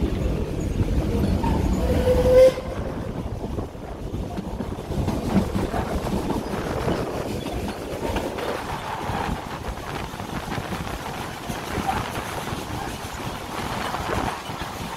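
Puffing Billy narrow-gauge steam train heard from a carriage, rolling on the rails with a clatter of wheels over the track. A loud rumble ends suddenly about two and a half seconds in, just after a short squeal. The clicking and clacking then goes on more quietly.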